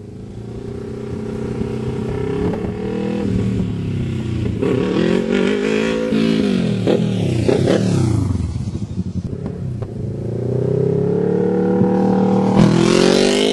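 Kawasaki Ninja 650R's parallel-twin engine through a Leo Vince SBK slip-on exhaust, revving up and down on the throttle as the bike approaches. Its pitch falls away as it passes close by, then the revs climb again to their loudest near the end.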